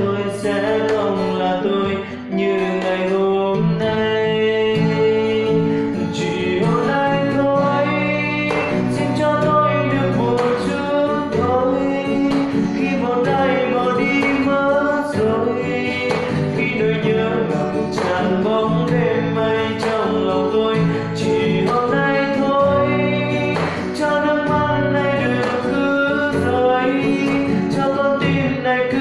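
Acoustic guitar with a capo, strummed in steady chords, with a man's voice singing along.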